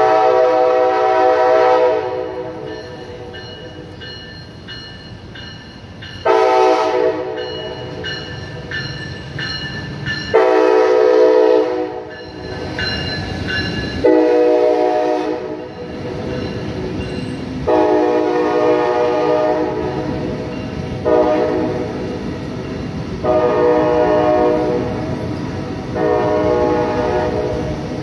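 Brightline passenger train's Siemens Charger locomotive horn sounding about eight blasts, some long and some short. Between the blasts the train rumbles as it rolls slowly past.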